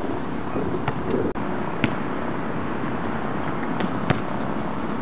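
A few sharp knocks from a basketball bouncing on a concrete court, with the loudest about four seconds in as the ball is dunked at the rim, over a steady rushing noise.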